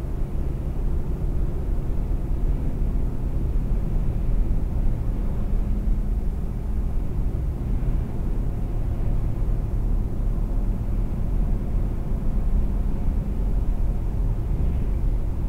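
Steady low rumble of a car's road and engine noise, heard from inside the cabin while cruising at about 50 mph.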